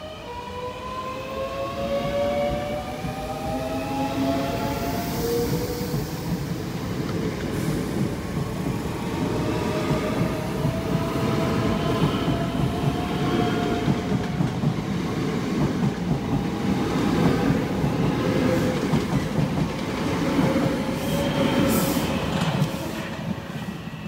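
Southeastern Class 465 Networker electric multiple unit running past along the platform. Its traction motors give a whine that rises in pitch over the first few seconds, over a steady rumble and clatter of wheels on rail that fades near the end.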